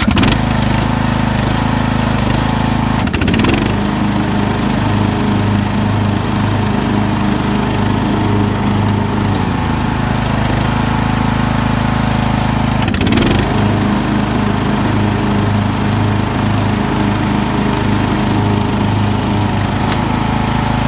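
Craftsman riding lawnmower engine, just started, running steadily at a loud, even level. Its note shifts briefly twice, about three seconds in and again about thirteen seconds in.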